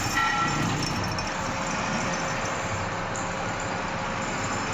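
Metal shaper machine running as it cuts a keyway in a metal shaft: steady mechanical noise, with a few short ringing tones in the first half second.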